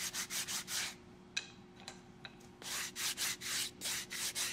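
Hand sanding on wood: quick back-and-forth strokes of abrasive paper, in two runs with a short pause and a few light knocks between them.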